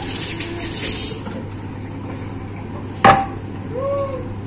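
Tap water running into a sink stops about a second in; about three seconds in comes a single sharp knock, like a hard object set down on a counter.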